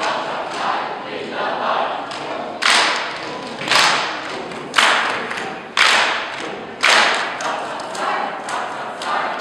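A choir of massed voices singing, with loud rhythmic percussive hits about once a second and softer ones between, echoing in a large hall.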